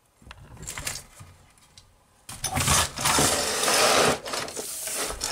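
Hands handling small hardware on a tabletop: irregular rustling, scraping and clicking, which grows denser and louder a little over two seconds in.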